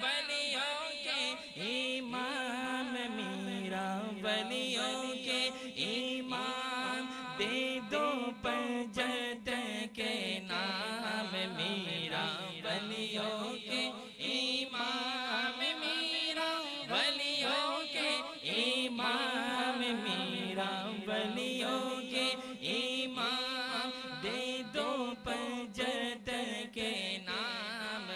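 A man singing a devotional Urdu naat without instruments, his voice bending through long ornamented phrases over a sustained hummed drone from backing voices that shifts pitch now and then.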